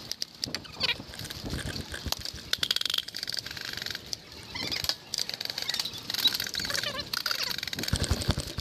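Airsoft guns firing in bursts of rapid clicks during a game, heaviest about two to three seconds in.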